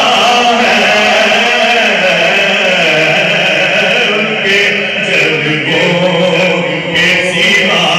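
Men's voices chanting in a drawn-out, melodic line that carries on without a break.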